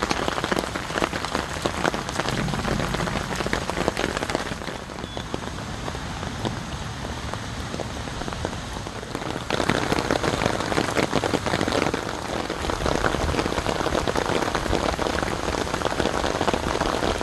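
Rain falling steadily, with many drops hitting the ground and rocks. It gets louder about nine and a half seconds in.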